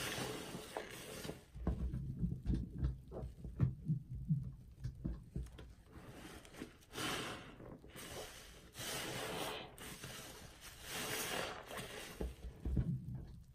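A soapy sponge squeezed and kneaded by hand in a basin of thick lather: irregular wet squelches and squishes, with stretches of hissing foam and water being pressed out of it in between.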